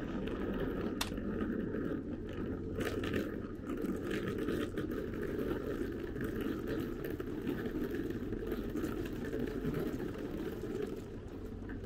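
Outdoor city pavement ambience while walking: a steady low rumble with a few scattered footsteps and clicks, easing slightly near the end.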